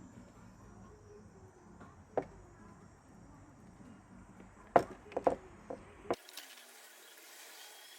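A few light clicks and knocks of small parts being handled: one about two seconds in, then a quick cluster of four or five between about five and six seconds in. The background changes suddenly to a thin steady hiss about six seconds in.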